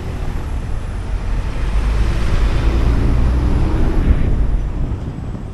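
A motor vehicle passing close by: its engine rumble and road noise swell up, peak in the middle and fade away.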